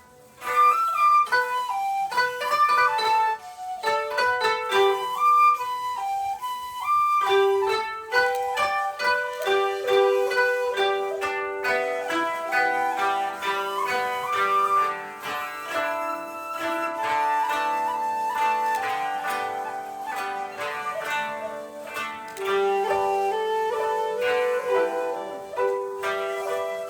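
Japanese chamber music: koto plucking quick runs of notes under a shakuhachi bamboo flute playing long held and sliding melody tones.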